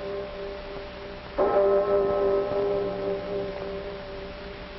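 A large bell tolling: one stroke about a second and a half in, its tone ringing on and slowly fading, with the ring of the previous stroke dying away at the start.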